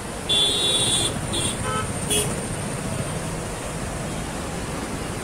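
Vehicle horn honking over a steady rumble of road traffic: one long toot of just under a second, then three short toots over the next second or so.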